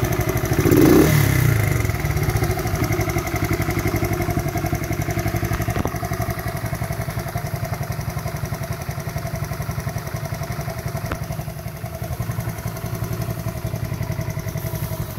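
1982 Honda CT70 Mini Trail's small single-cylinder four-stroke engine idling steadily, with one brief louder surge about a second in.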